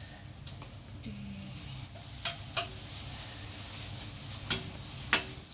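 Metal slotted ladle clinking against the steel pot and bowl four times, sharp short knocks with a brief ring, as blanched pig trotters are lifted out of the boiling water, over a steady low background noise.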